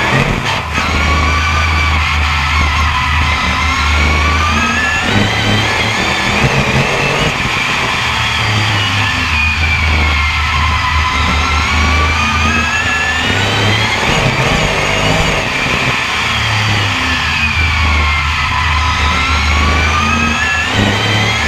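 BriSCA F1 stock car's V8 engine heard from on board under race power, its pitch rising along the straights and dropping through the bends in a repeating cycle about every eight seconds.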